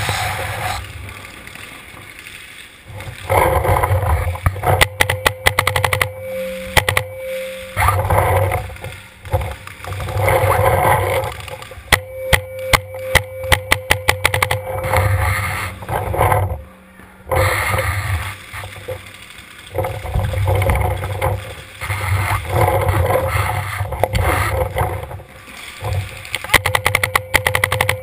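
Paintball marker firing rapid strings of shots, three strings in all, the last near the end. Each string comes with a steady whine. Between them, low rumbling and rubbing as the marker-mounted camera is moved and handled.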